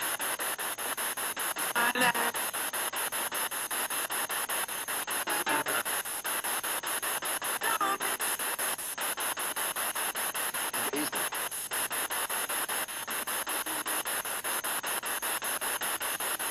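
Spirit box radio sweeping through stations: a steady hiss of static chopped into rapid, even steps. Brief fragments of broadcast voices break through a few times; they are read as the words 'America' and 'My Life'.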